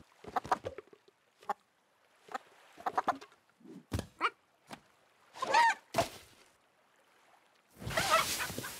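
A cartoon rooster clucking and squawking in short separate bursts, the loudest squawks about halfway through and near the end, with a couple of sharp knocks in between.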